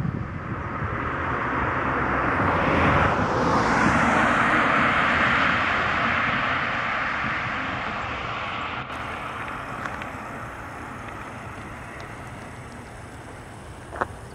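An aircraft passing overhead: a steady rushing noise that swells to its loudest about four to five seconds in, then slowly fades away. A short click comes near the end.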